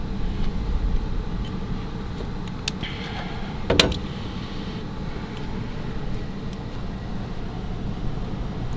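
A few small clicks and one sharper metallic clink about four seconds in, as the parts of an RV door deadbolt lock are handled, over a steady low background rumble.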